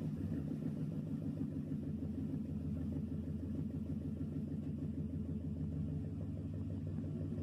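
An engine idling: a steady low rumble.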